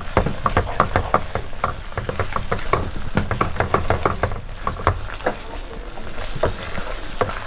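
A spatula stirring thick onion-tomato masala in a pan as it sizzles in its separated oil: a quick run of scrapes, clicks and pops that thins out over the last couple of seconds.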